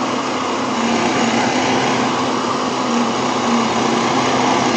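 Handheld electric heat gun running steadily: a constant rush of blown air with a low, even motor hum underneath.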